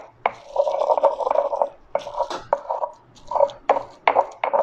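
Stone pestle grinding in a volcanic-stone molcajete, mashing habaneros, garlic and sea salt into a paste. Gritty scraping strokes of stone on stone, broken by several sharp knocks of the pestle against the bowl.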